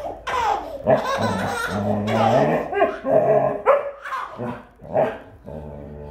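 A Doberman barking in play and a baby laughing, over background music.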